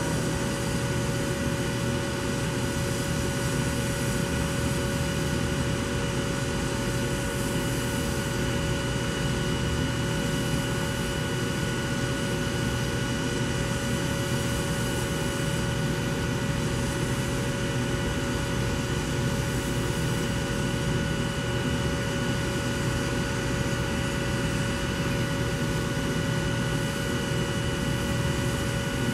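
Diesel locomotive engine running steadily, with a few constant high whining tones over the noise.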